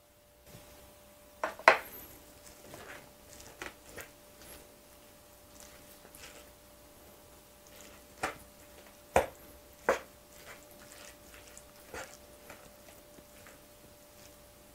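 A large spoon mixing a plate of bibimbap: scattered knocks and scrapes of the spoon against the plate, the louder ones about 2, 8, 9 and 10 seconds in, between softer stirring of rice, vegetables and gochujang.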